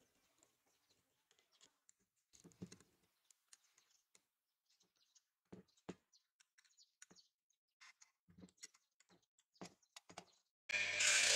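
Faint, scattered clicks and knocks of steel C-clamps being fitted and screwed tight over wooden handle scales on a cleaver's tang. Near the end an electric disc sander starts running, suddenly and much louder.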